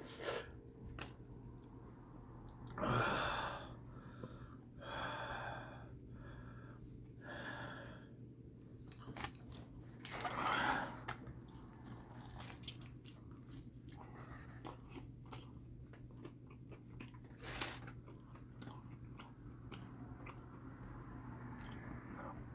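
A person chewing food close to the microphone, with wet mouth sounds and a few short, louder vocal sounds between bites. A steady low hum runs underneath.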